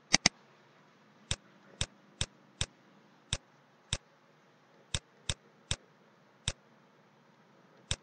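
Computer mouse button clicks, about a dozen, sharp and irregularly spaced, as strokes of handwriting are drawn on screen with the pen-ink tool. A faint steady hum lies underneath.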